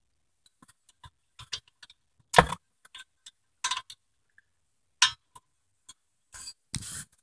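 Metal hand tools clicking and clinking at irregular intervals, with a sharper metal knock about two and a half seconds in and more clinks toward the end.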